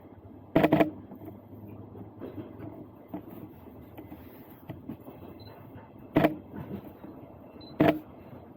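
Steady low rumble of a moving train, heard from inside the carriage. Three short loud knocks cut through it: about half a second in, at about six seconds, and near eight seconds.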